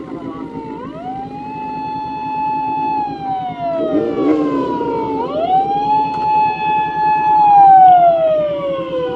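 Emergency vehicle siren wailing twice: each wail rises quickly, holds for a couple of seconds and slowly falls, growing louder as the vehicle approaches. A motorcycle engine idles steadily underneath.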